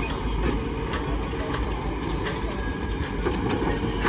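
A heavy vehicle running: a steady low rumble with scattered clicks and rattles.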